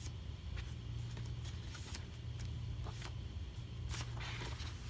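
Pages of a paper photo book being turned and handled: a few brief paper flicks and a short rustle near the end, over a steady low hum.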